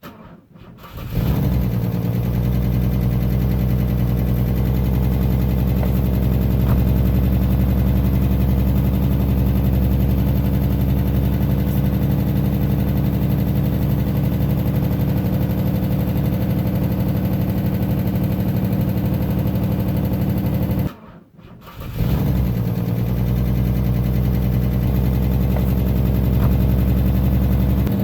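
Car engine with Bosch Jetronic fuel injection cold-starting. It cranks briefly, catches about a second in and settles into a steady idle. About three-quarters of the way through the sound cuts out, and a second start follows that picks up and idles steadily.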